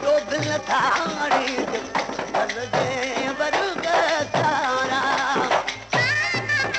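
Sindhi folk song music: a winding melodic line over a steady low drum beat, with a high held note coming in about six seconds in.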